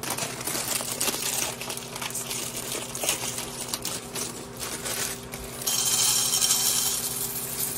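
Light crackling over a steady low hum. About six seconds in, dry small pasta is poured from a plastic bag into a hot ceramic-coated frying pan with a little oil, and it patters and rattles onto the pan for about a second and a half.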